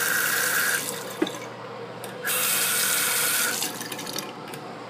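Bathroom sink faucet run briefly twice, water splashing onto the basin and into the drain for a second or so each time, with a steady high whistle from the tap while it flows. A sharp click falls between the two runs.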